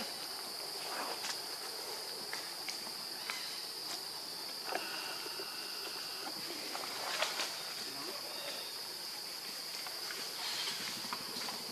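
Steady, high-pitched insect drone, with scattered light clicks and rustles from the monkeys moving over stone and leaves. A thin steady tone runs for a second or two midway, and a sharp click comes just past seven seconds.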